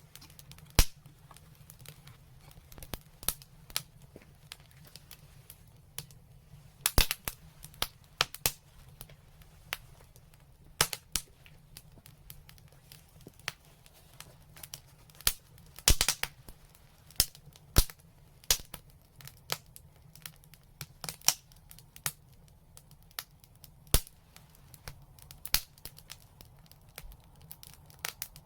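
Wood fire crackling with irregular sharp pops, a handful of them much louder than the rest.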